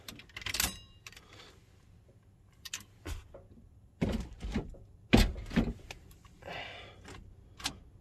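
Keys jangling and the ignition switch clicking as the key is turned on a 1978 Chevrolet C10 with a dead battery: scattered clicks and knocks in the cab, with no starter cranking and no engine.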